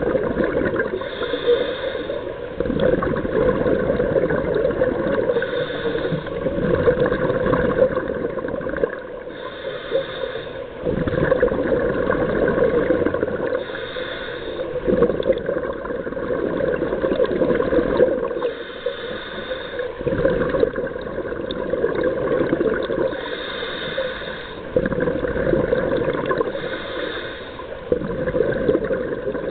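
Scuba diver breathing through a regulator underwater: a quieter high hiss on each inhale alternating with louder bubbling exhaust on each exhale, about one breath every four seconds.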